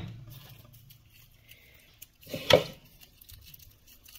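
Papery garlic skin rustling as a clove is broken off a garlic bulb by hand, with one sharp crack about two and a half seconds in.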